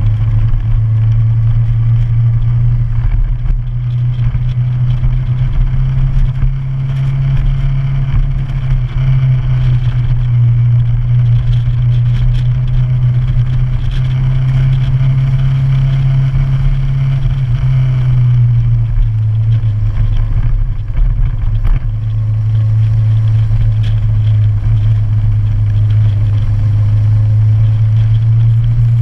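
Motorcycle engine running steadily at cruising speed, a constant low drone that shifts only slightly in pitch.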